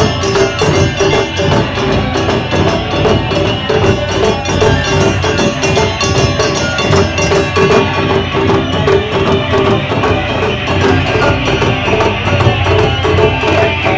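Live Japanese taiko ensemble music: drums and percussion playing a fast, steady rhythm.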